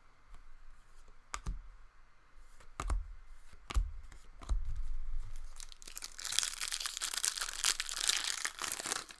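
A few soft knocks of cards being handled against the table, then, from about six seconds in, the foil wrapper of an Upper Deck hockey card pack crinkling and tearing as it is opened.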